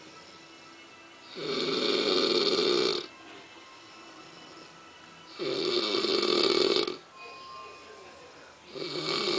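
Snoring in slow, even rounds: a snore of about a second and a half roughly every four seconds, three in all, with much quieter gaps between them.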